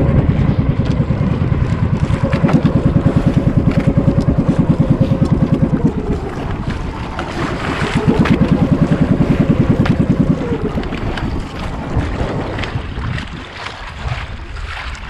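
Outrigger fishing boat's engine running under way with a fast, even chugging pulse. Its pitch drops about six seconds in, picks up again near eight, and the engine throttles back about ten seconds in and goes quieter.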